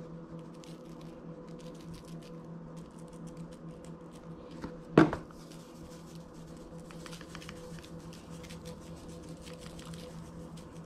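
Seasoning shaken from shaker containers over raw snapper fillets on a paper plate: a light, uneven patter of falling grains and shaker rattle. One sharp knock comes about five seconds in, as a container is set down on the stone counter.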